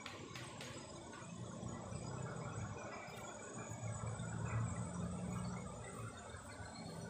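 Faint outdoor ambience: a steady insect drone with a low, wavering hum underneath, and a few soft clicks at the very start.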